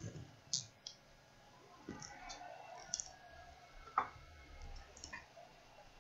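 Faint, scattered light clicks and taps, about half a dozen at uneven spacing, with the sharpest one about four seconds in.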